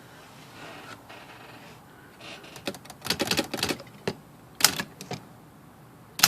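Remington Quiet-Riter manual typewriter typing: a quick run of key strikes about two and a half seconds in, then a couple of single strikes and another short run near the end.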